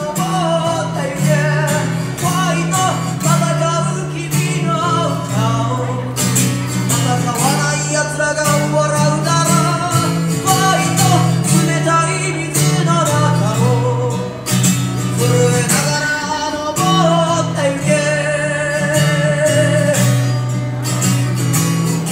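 A man singing to his own acoustic guitar, a busker's song with guitar chords under the voice.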